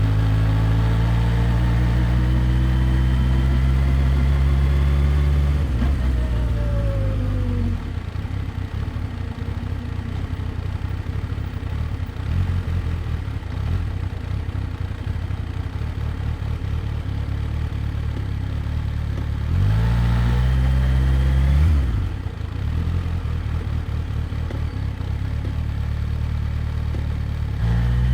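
Kawasaki Ninja H2's supercharged inline-four engine running at a steady speed, then falling in pitch about six seconds in and settling to an idle. About twenty seconds in it revs up for two seconds before dropping back to idle, and it picks up again at the very end.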